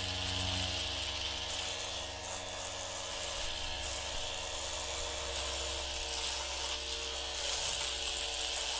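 Steady whirring buzz of small electric power tools running, a cartoon sound effect of rotary grinders at work.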